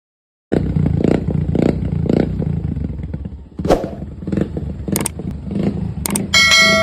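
Motorcycle engine running with a knock about twice a second: piston slap from a worn piston and cylinder. Near the end a ringing metallic chime sets in.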